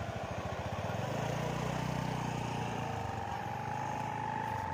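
Sawangan humming bows on large flying kites droning overhead: a steady hum that rises slightly in pitch, over a fast, low throbbing.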